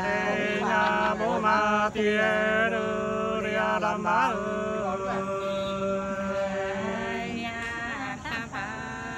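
Two men singing Nùng sli, an unaccompanied folk love-song, together in two voices, drawing out long held notes with slow wavering ornaments.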